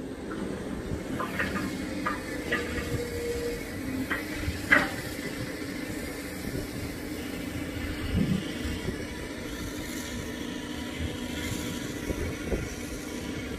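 Excavator's diesel engine running steadily, with several sharp metallic knocks in the first five seconds, the loudest nearly five seconds in.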